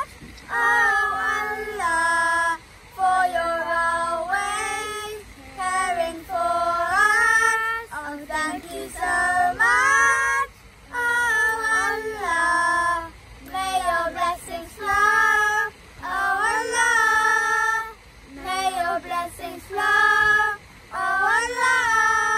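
A group of children singing together without instruments, phrase after phrase of held notes separated by short breaths.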